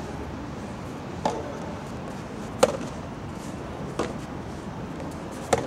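Soft tennis rally: the rubber ball struck by rackets and bouncing on the court, four sharp knocks about a second and a half apart, the second the loudest.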